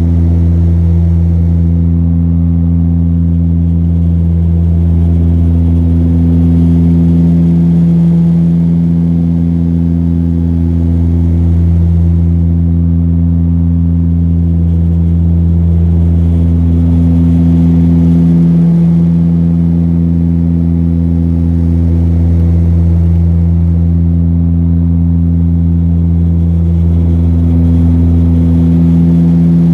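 Saab 340's twin GE CT7 turboprops and propellers running steadily: a loud, deep drone with a few steady tones, swelling and dipping in a slow beat about every four seconds.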